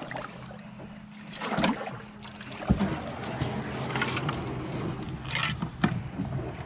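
Kayak being paddled along a creek: paddle splashes and a few sharp knocks against the hull, over a steady low hum.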